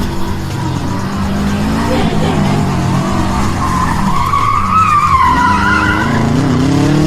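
Car engines revving, their pitch rising and falling, with a tyre squeal about four to five seconds in.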